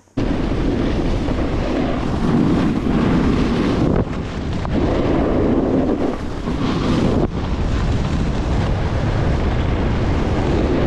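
Wind buffeting the microphone of a snowboarder's action camera while riding downhill, a loud steady rush that starts abruptly just after the start, mixed with the board sliding over the snow.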